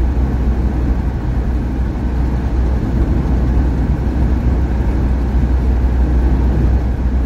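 Steady in-cab drone of a Renault Master motorhome cruising at highway speed: engine and tyre-on-road noise with a deep, even rumble.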